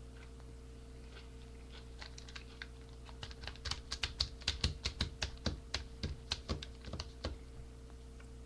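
Typing on a computer keyboard: a run of key clicks that starts about two seconds in, picks up to about four or five a second, and stops near the end, over a steady low hum.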